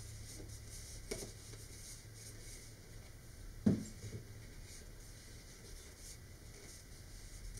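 Faint scratching and rubbing of a glue bottle's nozzle and fingers on a cardboard tube and centering ring while a glue fillet is run along the joint. A small click comes about a second in, and a louder knock with a weaker echo of it comes a little after three and a half seconds, as the cardboard part is handled.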